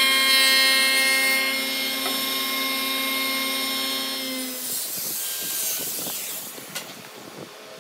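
Spindle moulder (wood shaper) cutting a profile along the edge of a red hardwood board: a loud, steady whine with many overtones that stops about four and a half seconds in. A quieter stretch with a few knocks follows.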